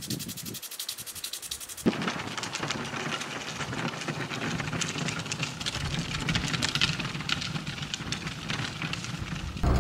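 Insects chirping in a fast, even, high-pitched pulse. About two seconds in, the sound cuts to a louder, steady rushing hiss of outdoor ambience with faint scattered ticks.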